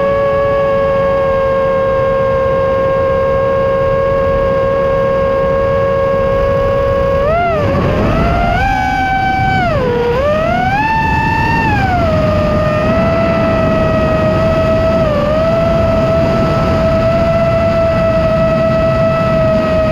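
Nazgul Evoque F5 five-inch FPV quadcopter's brushless motors whining at a steady pitch over a rush of air. About a third of the way in, the whine rises and dips several times with throttle changes, then holds steady a little higher.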